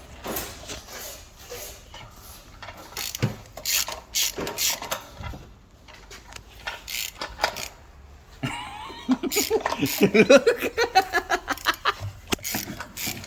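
Hand tools working engine bolts: scattered metallic clicks and knocks, then from about eight seconds in a fast run of ratchet clicking with laughter over it.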